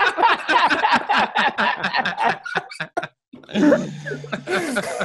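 Several men laughing hard together over a video call, in quick bursts of laughter that break off briefly about three seconds in and then pick up again.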